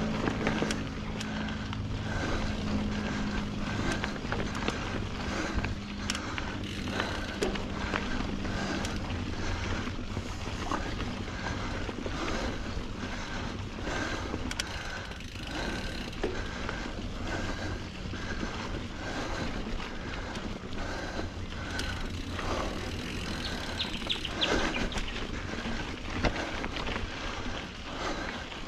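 Full-suspension mountain bike (Norco Sight A2) ridden along a rocky dirt singletrack: tyres rolling over dirt and rock with a constant stream of knocks and rattles from the bike. A low steady hum fades out in the first few seconds.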